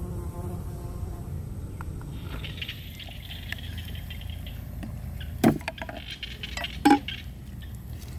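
Wet squelching and rustling as raw pig intestines are handled, then two sharp knocks about a second and a half apart, a knife striking a wooden chopping block, over a steady low rumble.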